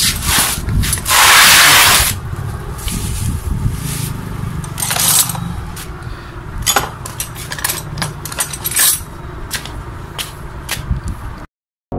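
A heavy cloth cover rustles as it is pulled back, loudest about a second in. Then metal hand tools (wrenches, pliers, a screwdriver) clink and scrape against each other in a plastic tool basket, many short sharp clicks as someone rummages through them.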